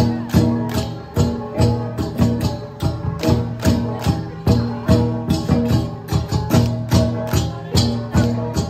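Central Highlands cồng chiêng gong ensemble playing: several hand-held gongs struck in turn in a repeating, interlocking rhythm of several strikes a second, their ringing tones of different pitches overlapping into a continuous sound.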